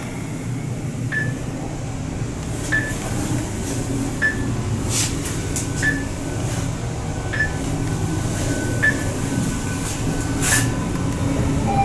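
Mitsubishi traction elevator car travelling upward: a steady low hum of the ride, with a short high beep about every one and a half seconds, seven in all, as the car passes each floor.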